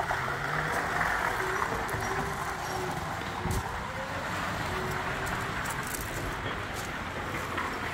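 Steady motor-vehicle noise: an engine running evenly, with no revving or sudden events.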